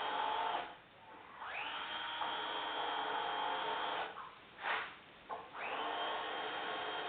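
Handheld power drill run in spells: the motor spins up and runs steadily for a few seconds, stops, gives a short burst and a quick blip, then spins up again and runs on.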